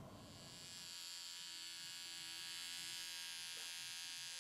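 Electric scissors buzzing steadily as they cut through cloth, faint, building up over the first second.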